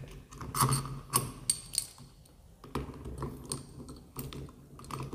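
Steel three-jaw bearing puller being fitted and tightened onto a ceiling fan motor's shaft to pull off the top bearing: metal clinks and clicks of the jaws and screw, a cluster of sharp clicks in the first two seconds, then lighter scattered ticks.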